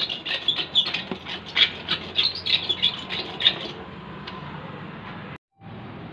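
Hand stitcher roller worked back and forth over a radial patch inside a tubeless tyre, pressing the patch down to bond it: a quick run of short squeaky strokes, about three a second. The strokes stop about four seconds in, leaving a steady low hum.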